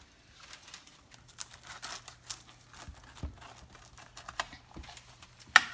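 Knife cutting through a toasted flour-tortilla quesadilla: irregular crisp crackling and small taps, with one sharp knock near the end.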